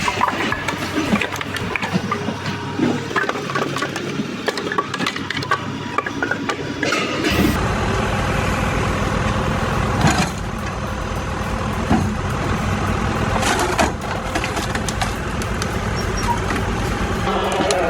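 Firewood processing machinery at work: wood clattering and knocking for about the first seven seconds, then an abrupt change to a steady machine drone with a few sharp cracks.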